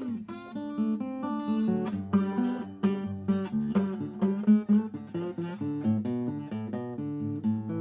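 Old handmade acoustic guitar played with a slide in an instrumental break: a downward slide at the start, then a steady rhythm of picked and strummed notes.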